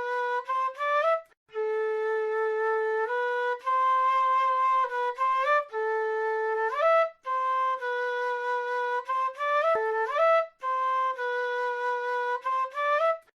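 South American flute playing a slow melody of held notes, each phrase ending in a quick rising run of notes, with short pauses for breath between phrases.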